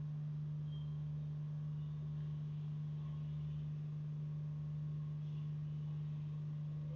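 Steady low hum, a single unchanging low tone.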